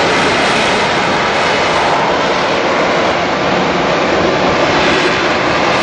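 AV-8B Harrier's Rolls-Royce Pegasus turbofan running loud and steady as the jet hovers on its vectored thrust.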